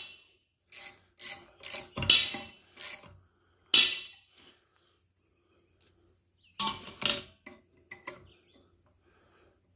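Ratchet wrench clicking in short strokes with metal parts clinking as the compressor's fasteners are worked loose: a run of brief bursts in the first four seconds, a pause, then a few more.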